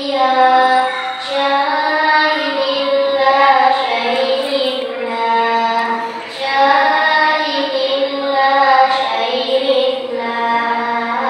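A boy singing shalawat solo and unaccompanied, in long held notes with ornamented, wavering pitch.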